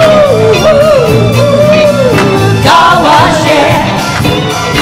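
Live band playing a funk-disco cover, with bass, electric guitar, keyboard and drums, and a lead singer's drawn-out, wavering sung line over the groove, which pauses about two seconds in and comes back briefly.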